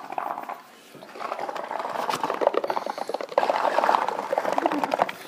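Water bubbling in a dense stream of small pops and gurgles. It dips briefly just before a second in, then runs on, louder in the second half.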